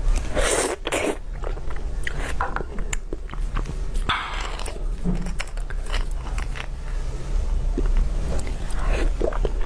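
Close-miked eating sounds: chewing and slurping soft beef bone marrow, with wet mouth clicks and three louder slurps, one just after the start, one about four seconds in and one near the end.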